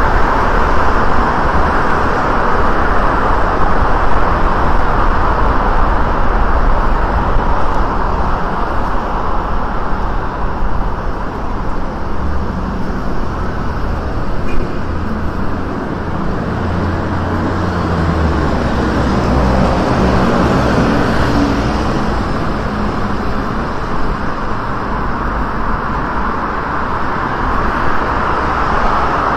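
Steady road traffic on a wide city street: cars and buses passing. A lower engine drone from a heavier vehicle rises out of it for several seconds around the middle.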